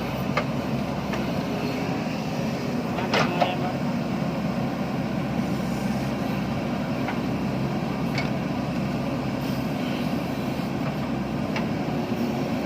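JCB backhoe loader's diesel engine running steadily, with a few sharp knocks, the loudest about three seconds in.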